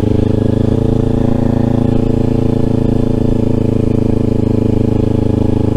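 Motorcycle engine running at a steady cruise, its pitch holding even.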